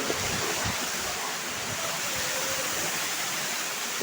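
Steady rush of a waterfall, falling water making an even noise.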